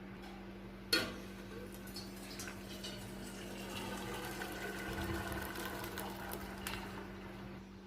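Cooking water and parboiled basmati rice poured through a strainer, the water splashing down into a pot beneath. There is a single knock about a second in, and the pouring swells towards the middle and then tails off.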